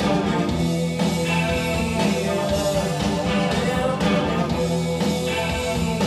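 Rock music with guitar played over a pair of Glasshouse Speaker Kit No. 1 two-way bookshelf speakers, driven by an EL34 single-ended valve amplifier during a listening test.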